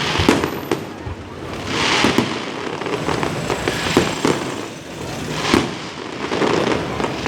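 Fireworks going off: a series of sharp bangs about once a second or so, the loudest near the start, about four seconds in and about five and a half seconds in, with crackling swells in between.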